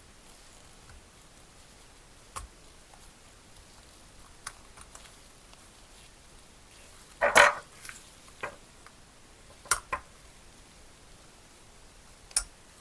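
Sparse clicks and knocks of a small copper box and its parts being handled. The loudest is a short cluster of knocks about seven seconds in, then a quick double click near ten seconds and a sharp click near the end.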